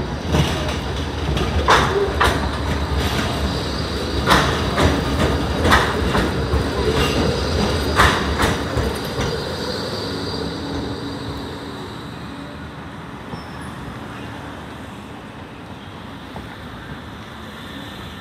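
E2-class Bombardier tram rolling in over the junction trackwork, its wheels giving a string of sharp clacks over a rumble for the first eight seconds or so. The rumble then fades as the tram slows to a stop.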